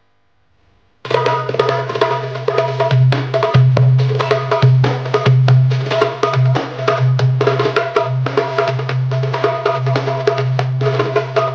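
Near silence for about a second, then a baile funk/Jersey club dance track kicks in with a heavy steady bass and a fast drum pattern. Live darbuka strokes are played along over it in a rapid rhythm.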